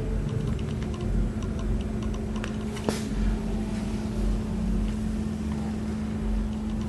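Steady low mechanical hum with a slow pulsing underneath, faint ticking, and a single sharp click about three seconds in.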